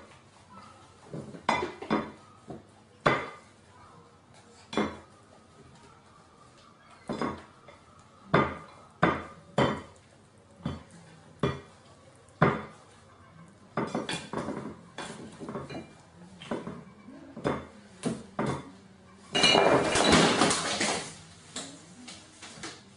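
A gull's beak pecking and knocking against a china plate, making scattered sharp clinks of crockery. Near the end there is a louder scuffling clatter about a second and a half long.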